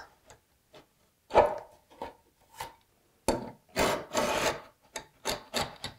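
Hand router plane's blade scraping across a wooden tenon cheek in a series of short strokes, with a longer one about four seconds in: it is shaving off high spots to bring the tenon to its finished thickness.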